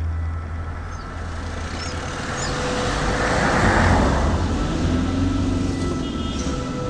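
A road vehicle passing on an asphalt road, its tyre and engine noise swelling to a peak about halfway through and then fading, over a steady low hum.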